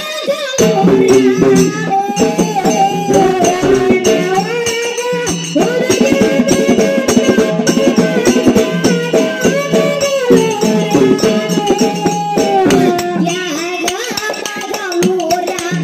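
Kannada dollina pada folk song: a woman sings over a barrel drum and small brass hand cymbals that jingle steadily.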